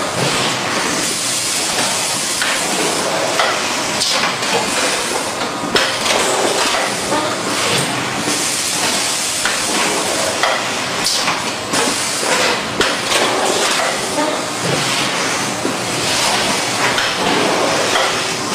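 Automatic open-mouth bagging machine filling a 25 kg bag: steady machinery noise with hissing and frequent clicks and knocks.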